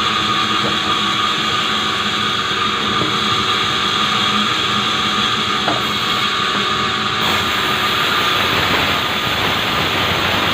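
Sawmill saw running through acacia wood, a steady loud whine with high ringing tones over the noise of the cut. The high range brightens about seven seconds in. The uploader says the blade sounds cracked.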